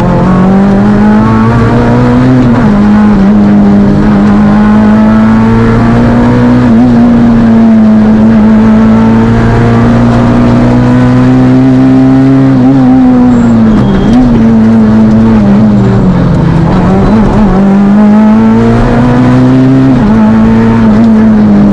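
Fiat Panda Kit Car rally engine pulling hard at high revs, heard from inside the car. The note drops and climbs back several times, as with gear changes or lifts for corners.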